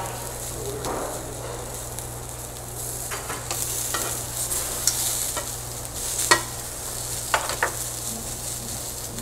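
Meat sizzling on a hot tabletop barbecue grill, a steady hiss, with metal tongs clicking against the grill and plate several times. A steady low hum runs underneath.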